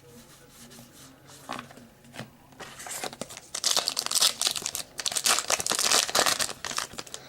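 Foil wrapper of a basketball trading-card pack being torn open and crinkled in the hands, with a few light handling clicks first and then a long stretch of loud crackling from about three seconds in until just before the end.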